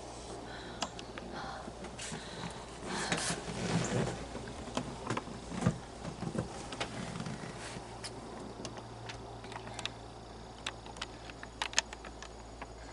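Rustling, shuffling and light knocks of people moving and handling gear and the camera inside a hunting blind, busiest a few seconds in, with scattered sharp clicks over a faint steady low hum.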